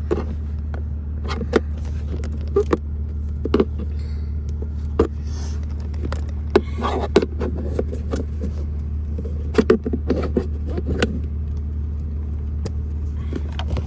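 Flat-blade screwdriver tips clicking, knocking and scraping against the plastic dash as a loose power outlet is pried back into place, over a steady low hum.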